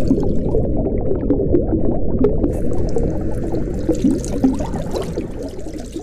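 Water sound, a steady low pouring and bubbling, slowly fading toward the end.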